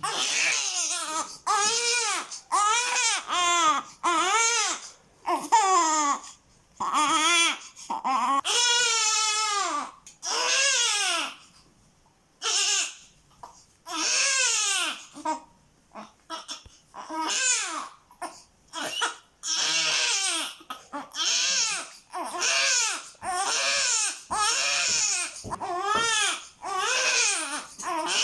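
Newborn baby crying: a long run of cries, each arching up and falling in pitch, broken by short pauses, with a longer lull about twelve seconds in.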